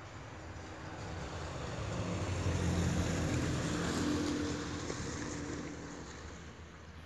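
A motor vehicle passing by: a steady engine hum with road noise that swells to its loudest about three seconds in, then fades away.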